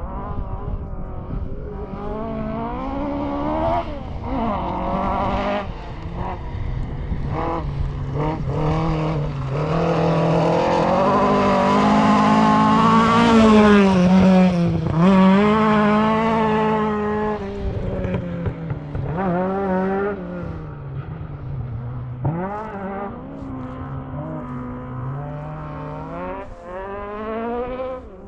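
Rally car engine heard from inside the car, revving hard and dropping again and again through gear changes and corners. The longest and loudest high-rev pull comes around the middle.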